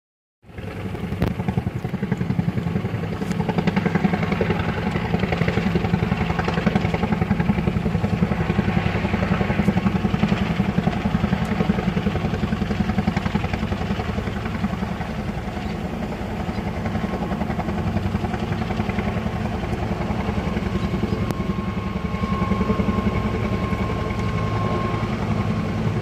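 Firefighting helicopter's rotor beating steadily in a low hover as it fills a water bucket slung beneath it.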